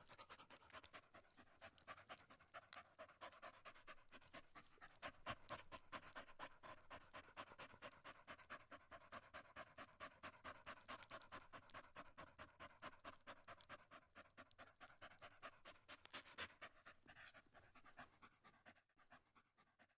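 A dog panting quickly and evenly, faint, stopping about a second before the end.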